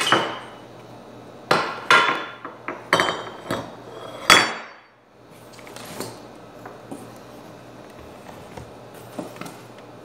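Metal parts of a Panasonic MK-G1500P meat grinder knocked and set down on a hard countertop. There is a series of sharp clanks with short metallic ringing, the loudest about four seconds in, then a few light taps.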